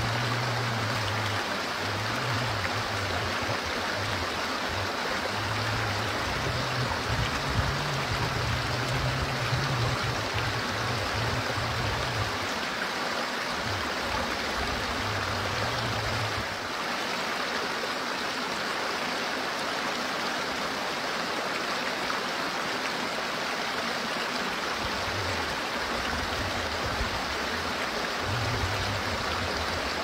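A small rocky stream rushes and splashes over stones and a little cascade, a steady wash of running water. A low rumble comes and goes beneath it.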